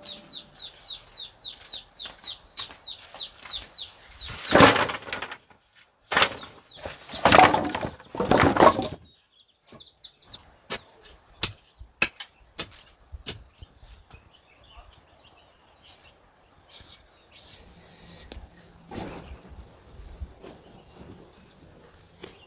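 A bird calling in a quick series of short falling chirps over a steady high insect drone, followed by several loud rustling bursts and scattered clicks.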